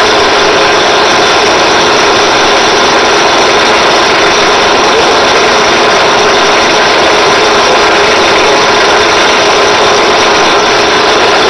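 Drill press running, spinning a motorcycle valve guide in its chuck while a file is held against it to take down the guide's outside diameter: the guide is oversize and is being sized to fit. A loud, steady whirring and rasping.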